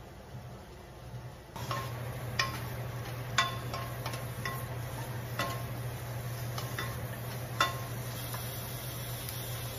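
Onion slices sizzling in a non-stick saucepan while a wooden spatula stirs them, knocking against the pan several times with short ringing taps.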